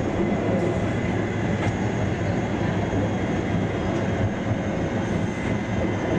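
Tram running on its rails, heard from inside the car: a steady rumble of wheels and running gear with a faint high whine.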